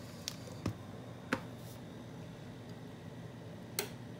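Four short, sharp clicks, the loudest about a second in and the last near the end, over a steady low electrical hum.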